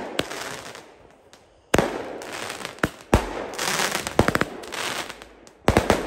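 Firecrackers going off: several sharp bangs at uneven intervals, each trailing off in a long fading echo, with a quick rattle of small cracks a little past the middle.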